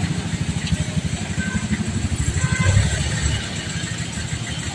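A vehicle engine runs close by in slow street traffic, a rapid low throbbing that eases about three and a half seconds in. Music plays in the background.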